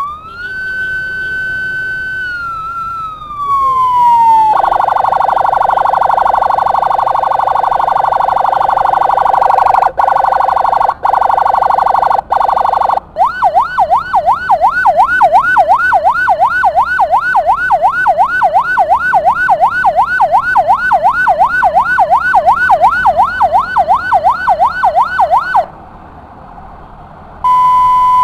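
Ambulance's electronic siren cycling through its modes: a slow wail that rises and falls, then a steady blaring tone broken three times, then a fast yelp sweeping up and down about three times a second, ending on a steady single tone.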